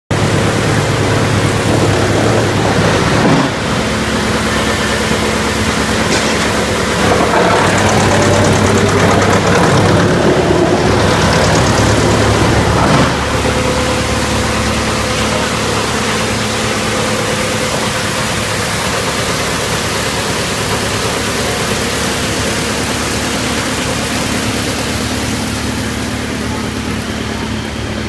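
Rotex Master YMPJ 218 wood chipper (110 kW main drive) running and chipping wood, a loud steady machine hum under a dense rushing, crunching noise. The noise grows louder and harsher from about a quarter of the way in to nearly halfway, then settles to a steadier run.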